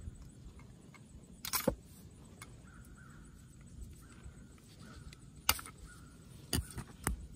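A few separate sharp metal clicks and knocks from an expanded-metal accessory shelf and its clamp bracket being handled and fitted onto the deer stand's tubing. The first comes about one and a half seconds in, and the rest come near the end.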